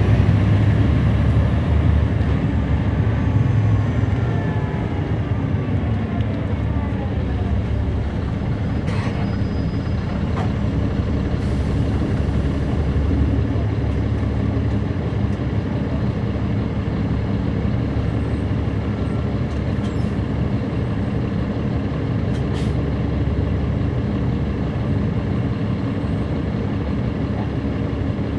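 A 2009 NABI 40-SFW city bus with a Caterpillar C13 ACERT diesel and a ZF Ecomat automatic transmission, slowing down. Its drivetrain whine falls steadily in pitch over about eight seconds, then the diesel runs on steadily at low speed. There are a few brief clicks and hisses about 9, 11 and 21 seconds in.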